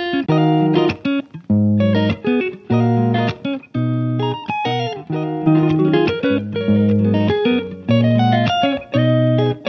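Background music: a plucked-string melody over a bass line, with notes struck in quick succession and short gaps between phrases.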